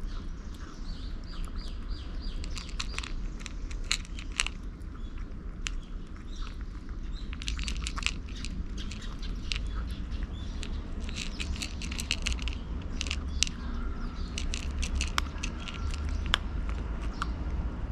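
A cat chewing food from a bowl: irregular sharp chewing clicks, thicker in the second half, over a steady low rumble. Faint bird chirps come through now and then.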